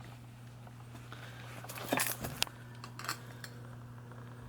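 Faint handling noises: a few soft knocks and rustles about two seconds in and again near three seconds, over a steady low hum.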